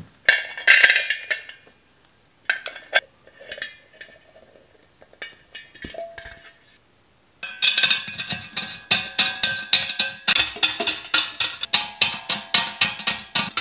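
Stainless steel brewing-kettle parts, the lid and the malt pipe of a Speidel Braumeister, clinking and knocking as they are handled. In the second half comes a fast run of metallic taps, about four a second, each ringing at the same few pitches.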